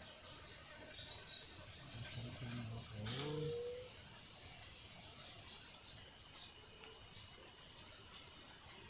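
Steady high-pitched chirring of insects, crickets or cicadas, with faint bird chirps. A short low murmur, rising in pitch at its end, comes about two to three and a half seconds in.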